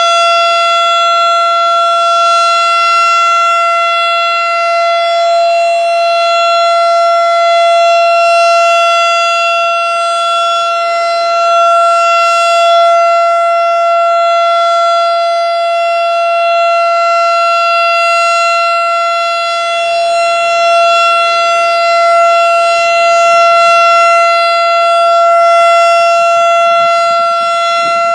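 Federal Signal STH-10 electromechanical tornado siren sounding its steady alert tone: one held pitch with no rise or fall, swelling and fading slightly in loudness.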